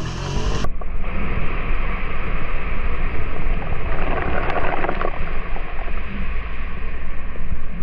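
Loud, rough rumble of an ATV on the move: engine noise mixed with wind and ride noise on the microphone.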